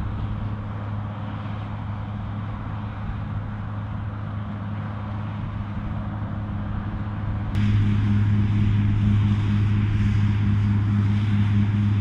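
Claas Dominator 218 Mega combine harvester running under load while harvesting rapeseed, a steady engine hum over the threshing noise. About two-thirds of the way in the sound suddenly becomes louder and brighter, with a fast pulsing in the hum.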